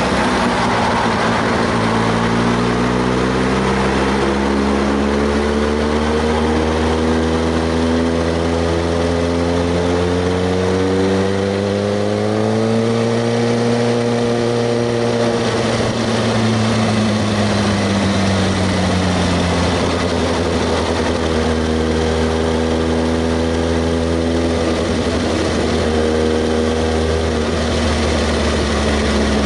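Kawasaki ZX-6R 636 motorcycle's inline-four engine running steadily while riding. Its pitch rises slowly for several seconds, then falls back and holds steady near the end.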